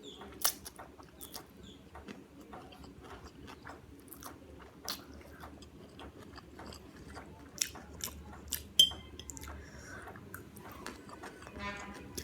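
Close-miked chewing of a mouthful of food, with many short wet mouth clicks and smacks. A sharp ringing clink about nine seconds in is the loudest sound.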